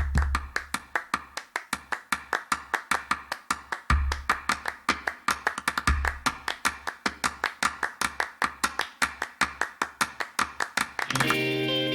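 Instrumental song intro: a fast, even run of tapping percussion hits with a few deep bass notes, giving way near the end to a held chord.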